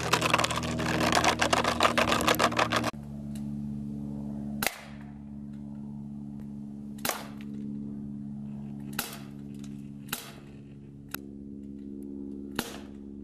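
A .177 BB air pistol fired about five times, a sharp crack every second or two, over a steady low hum. The first few seconds hold a louder, busier stretch of sound before the shots begin.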